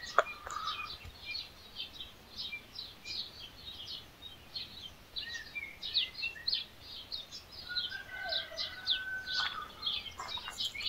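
Small birds chirping, many quick high chirps several a second, with a few longer whistled notes about eight seconds in. A single sharp click just after the start.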